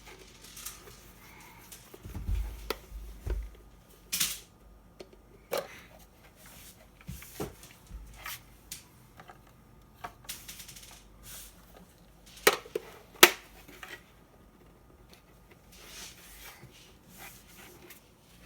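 Plastic parts of a Bosch GAS 18V-1 cordless vacuum's cyclone filter and dust container being handled: irregular clicks, knocks and light rattles, with a few dull thumps early on and two sharp clicks a little under a second apart about two-thirds of the way through.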